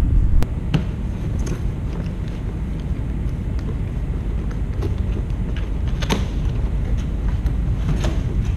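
Steady low rumble with a few light knocks and rustles of a cardboard material box being handled.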